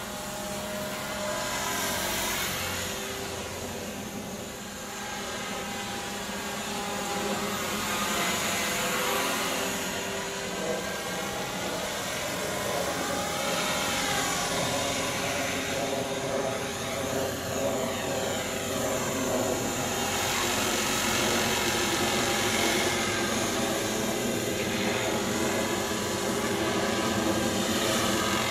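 Electric Mini Titan RC helicopter in flight: the whine of its motor and the buzz of its spinning rotor blades, swelling and shifting in pitch as it moves about overhead.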